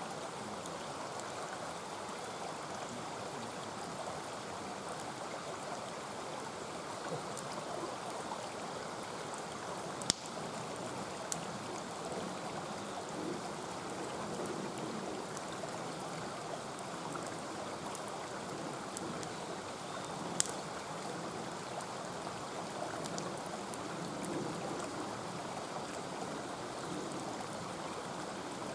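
Mountain stream rushing steadily, with a few sharp pops from burning firewood in a campfire, the loudest about a third of the way in.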